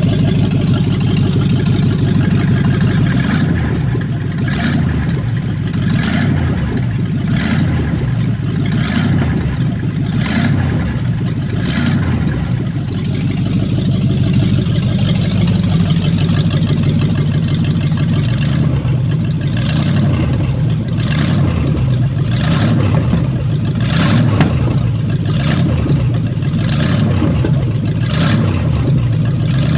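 Vehicle engine running at a steady idle, with a weird exhaust noise of short puffing bursts that recur irregularly, roughly once a second.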